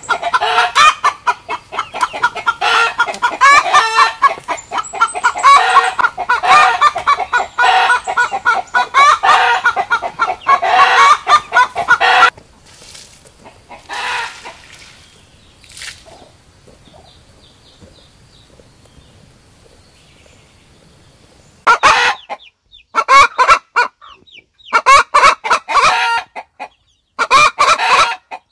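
Chickens clucking and squawking, loud and dense for about twelve seconds. Then it goes quiet apart from a couple of single calls, and loud clucking comes back in short bursts near the end.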